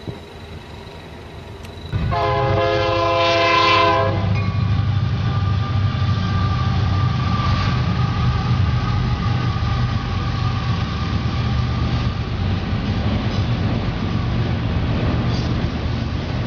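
Union Pacific diesel freight train at a grade crossing: a horn blast starting about two seconds in and lasting about two seconds, then the steady rumble of the locomotives and rolling cars as the train passes.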